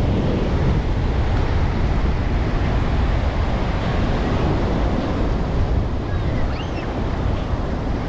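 Surf breaking and washing up a sandy beach, a steady rushing noise, with wind buffeting the microphone and adding a low rumble.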